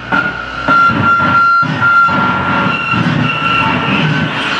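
Live harsh noise music from electronics and effects pedals, cut up and mixed on the fly: dense distorted noise broken by abrupt cuts, with a thin high whistle held through the first half and a higher one later.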